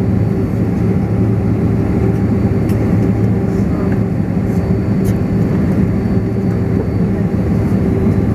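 Steady hum of a jet airliner's engines idling on the ground, heard from inside the cabin, with a low drone and a few faint clicks.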